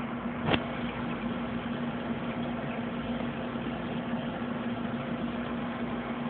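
Aquarium pump humming steadily with a constant low tone, with a single sharp click about half a second in.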